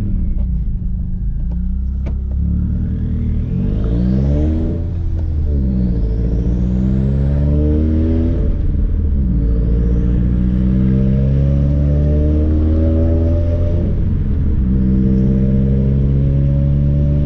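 Subaru WRX's turbocharged flat-four with a straight-piped exhaust, heard from inside the cabin while accelerating through the gears: the engine note climbs, drops at each of three upshifts, then holds steadier, rising slowly near the end.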